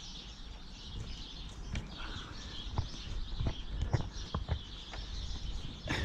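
Small birds chirping steadily in the background, with scattered soft knocks and rustles of string and hands being handled close by.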